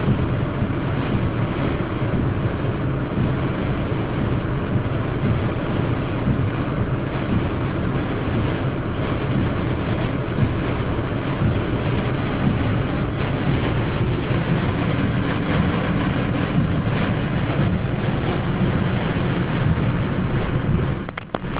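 Violent storm wind and torrential rain battering a car, heard from inside it as a steady, loud rumble and hiss. The level dips briefly near the end.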